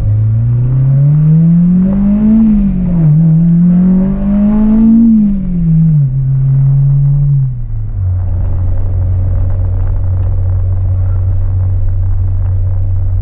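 Acura RSX's K20 four-cylinder engine pulling hard under acceleration, rising in pitch, shifting up about two and a half seconds in and pulling again. It drops back about five seconds in and settles into a steady cruise for the second half.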